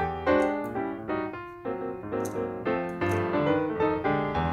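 Background piano music, a quick run of notes.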